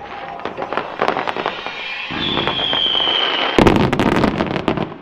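Fireworks display: crackling and popping shells, then a high whistle about two seconds in that falls slightly in pitch, followed by a rapid volley of loud bangs near the end.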